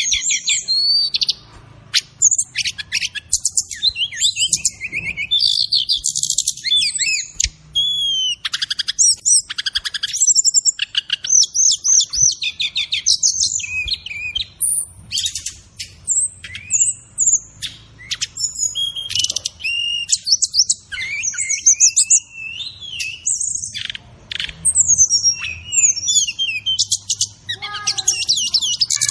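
Sikatan rimba dada coklat (brown-chested jungle flycatcher) singing a rapid, varied song of high whistles, trills and chirps, broken by short pauses.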